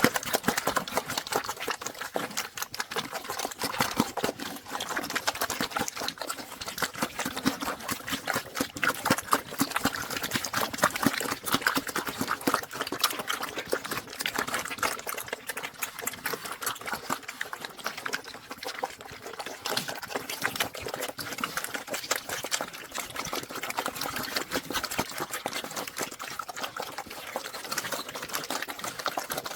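Pigs eating wet feed: a dense, continuous chomping and slurping.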